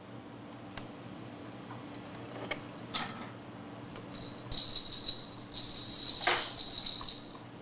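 A baby's toy rattle jingling as it is shaken for about two seconds, starting about halfway in, after a few light taps.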